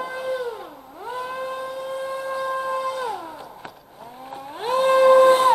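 RC airboat's brushless outrunner motor and three-blade propeller whining at high throttle. The pitch drops twice as the throttle is eased off, about a second in and again past the middle, then climbs back each time, loudest near the end.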